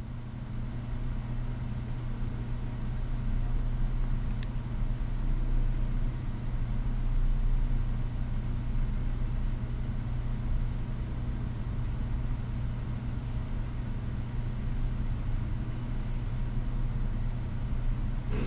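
Steady low hum with a fluctuating low rumble underneath and one brief faint high tick about four seconds in.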